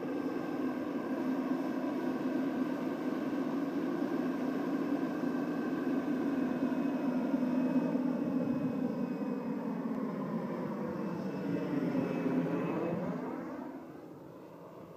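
Turbine-powered model EC 135 helicopter (JetCat PHT3 turboshaft) in flight: a steady turbine whine with main-rotor and fenestron noise. About twelve seconds in, the pitch dips and rises again. Near the end the sound fades as the helicopter flies off into the distance.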